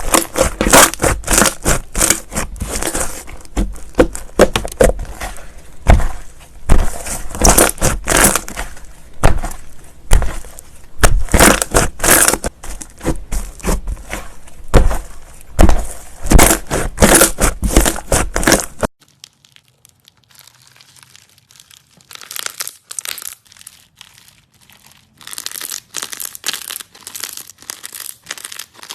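Slime being squeezed and pressed by hand, making dense crackling and popping clicks. About two-thirds of the way through it drops abruptly to quieter, sparser crackles of another piece of slime.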